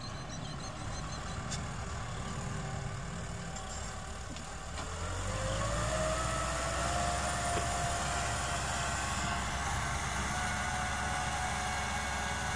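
Kubota tractor's diesel engine running steadily while pulling a disc implement through dry soil; about five seconds in it gets louder and rises in pitch, then holds steady.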